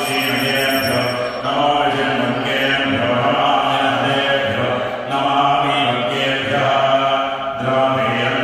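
Hindu devotional chanting of a mantra, sung in phrases a second or two long over a steady low drone.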